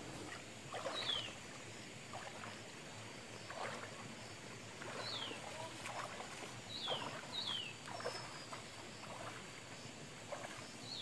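Footsteps wading and splashing through a shallow stream, one every second or so. A bird repeats a short falling whistle every one to two seconds over it.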